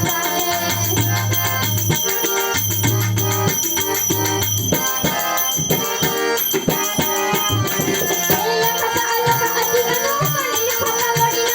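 Music: a melody line over rhythmic percussion strokes, with a low held tone pulsing on and off through the first half.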